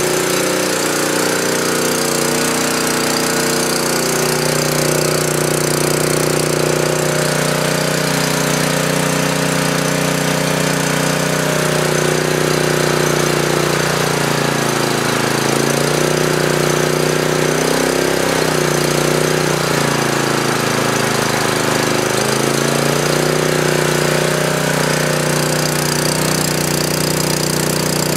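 9 hp Honda GX single-cylinder engine on a generator running steadily on choke just after a cold start in sub-zero weather, still warming up. Its speed wavers briefly about halfway through, then settles.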